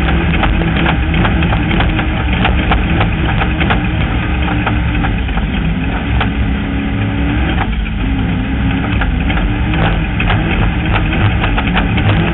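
Off-road vehicle's engine running hard while driving on a rough desert dirt track, with many sharp clicks and rattles over the steady engine note. The engine note dips briefly about seven and a half seconds in, then picks up again.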